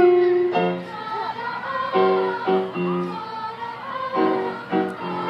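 Children's choir singing with piano accompaniment, the chords struck afresh several times.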